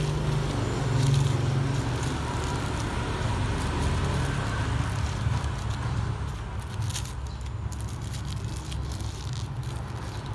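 Steady low rumble of a motor vehicle engine running, with scraping and crackling as a durian pod is pulled out of its spiky husk in a paper wrap, a short run of crackles around the middle.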